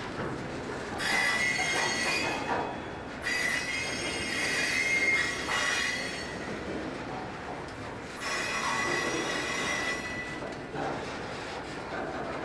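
Freight cars of a Southern Pacific local rolling past, their steel wheels squealing in three drawn-out stretches of a high, ringing squeal, over the low rumble of the moving train.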